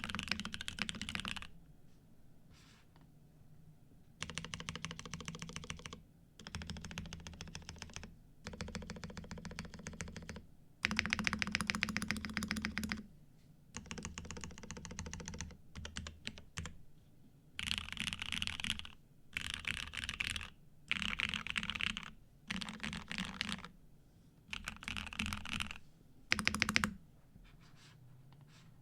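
Neo80 mechanical keyboard with lubed and filmed Cherry Nixie switches on a POM plate and foam-filled case, typed on fast in repeated bursts of a second or two with short pauses between. Dense, thocky keystrokes, the loudest run about a third of the way in.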